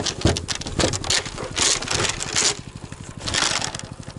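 Albatros motor-dog's small engine idling with a steady rapid putter, while snow is crunched and scraped loudly in four bursts about a second apart.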